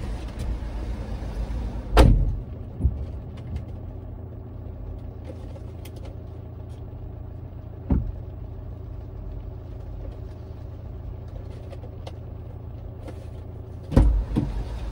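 Inside a car with its engine idling steadily. A car door thuds shut about two seconds in, a single knock follows around eight seconds, and louder thumps come near the end as the door is opened again.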